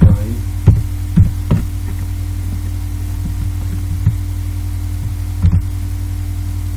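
Steady low electrical mains hum picked up by the recording microphone. Over it come several sharp computer keyboard and mouse clicks: four in the first second and a half, then two more, about four and five and a half seconds in.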